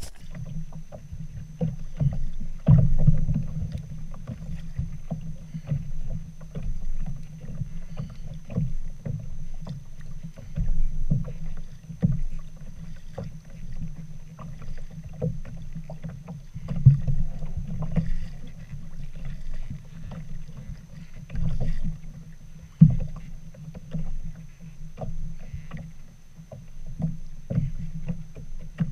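Small waves lapping and slapping against a plastic kayak hull, with irregular dull knocks. The sound is mostly low and dull.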